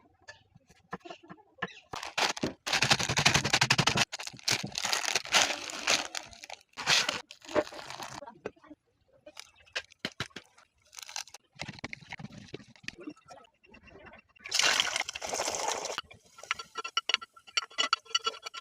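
Food being prepared and cooked: a run of sharp clicks and cracks, with a few bursts of noisy hiss lasting a second or two each.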